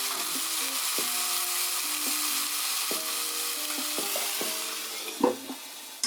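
Chicken pieces frying in oil in a pan: a steady sizzle that fades near the end, with faint held musical notes underneath.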